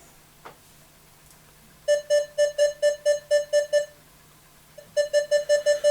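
Minelab X-Terra 705 metal detector's target tone: two runs of rapid, even beeps at one mid pitch, about four or five a second, as an Ivan the Terrible wire kopeck ('cheshuya') is swept over the coil. It is a clear, repeatable signal.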